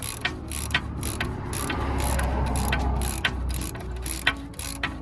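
Hand ratchet clicking in quick strokes while a bolt on a rear brake caliper is turned out against a wrench-held nut, with a louder rough grinding stretch in the middle.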